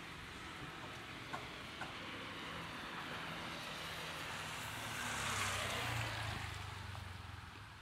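A motor vehicle passing on a rain-wet street, its tyres hissing on the wet road over a low engine hum. It builds to its loudest about five seconds in, then fades away.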